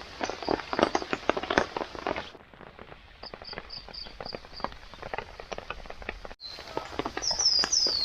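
Dense, irregular crackling and snapping clicks that thin out after an abrupt cut a little over two seconds in. There is a short, evenly spaced run of high chirps in the middle and a few quick, falling high chirps near the end.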